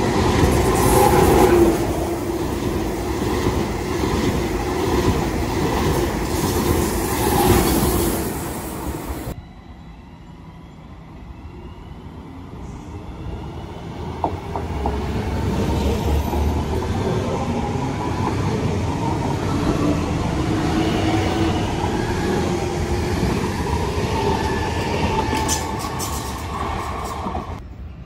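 ICE high-speed train running past along the platform, loud wheel-and-rail noise with some squeal, cut off abruptly about nine seconds in. Then a regional electric multiple unit approaches and pulls in, its wheel noise joined by a motor whine that glides in pitch.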